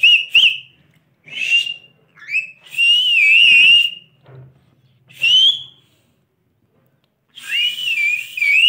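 Pet parrot whistling a series of short, warbling, human-like whistle phrases with brief pauses between them, in answer to being told to whistle.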